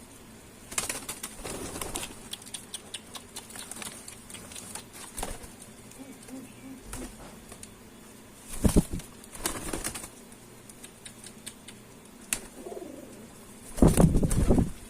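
Domestic pigeons: wings flapping in bursts, a flurry about a second in and louder bursts about two thirds through and near the end, with soft low cooing in between.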